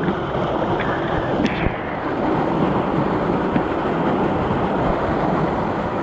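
Steady rush of a small waterfall spilling over rock into a pool, close to the microphone.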